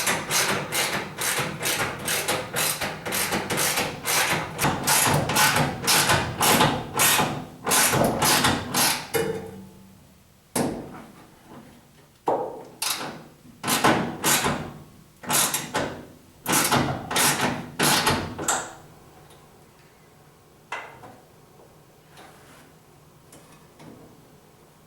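Ratchet wrench with an extension tightening the tool box's J-hook bolts: quick ratcheting strokes about three a second, slowing to about one a second after roughly ten seconds and stopping a few seconds later as the bolt snugs down.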